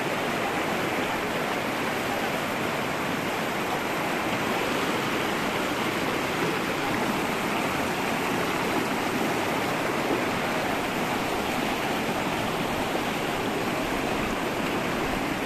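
Fast-flowing, shallow mountain river rushing over rocks close to the microphone: a steady, unbroken rush of water.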